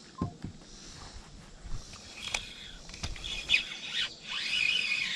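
A bird calling with a run of high, curving squeals and chirps that start about halfway through and grow louder toward the end, with a few sharp clicks before them.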